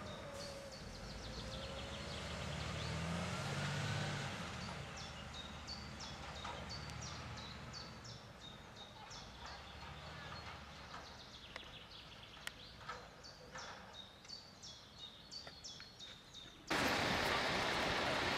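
A fire engine driving away down a dirt track, its engine rumble fading over the first several seconds, while birds chirp repeatedly. Near the end the sound jumps suddenly to a louder, steady outdoor noise.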